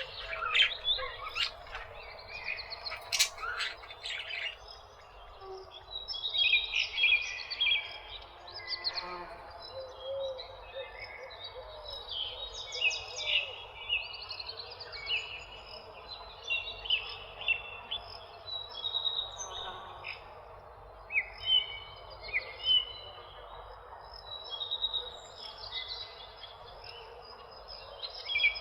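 A flock of parakeets chirping and chattering with many short, repeated high calls, and a few sharp squawks in the first few seconds.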